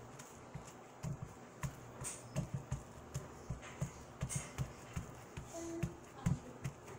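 Hands pressing and smoothing a blue-masa tortilla inside a plastic sheet on a wooden tortilla press: irregular soft taps and knocks with the plastic rustling.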